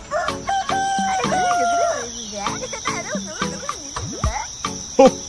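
A rooster crowing once in one long held call, over a steady high chirring of crickets. After it come shorter, wavering bird calls.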